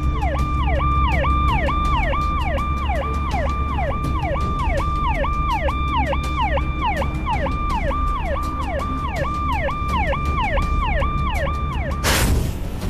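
Police-style vehicle siren sounding in a fast repeating cycle, each one jumping up in pitch, holding briefly and sliding back down, about two to three cycles a second, over a steady low engine and road rumble. It cuts off near the end with a sudden loud hit.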